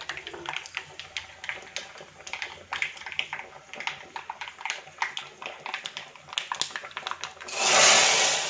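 Mustard seeds popping and crackling in hot oil in a small tempering pan, with curry leaves and dried red chillies, in quick irregular clicks. Near the end, a loud burst of sizzling as the hot tempering is poured into the cooked dal.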